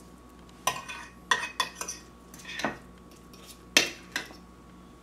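Metal spoon knocking and scraping against a dish as seafood stuffing is scooped out and packed onto salmon fillets: about seven sharp clinks and short scrapes, the loudest near the end.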